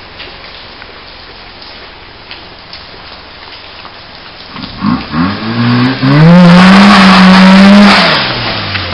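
1985 Mazda RX-7's rotary engine idling, then blipped a few times about five seconds in and held at high revs for about two seconds before dropping back toward idle.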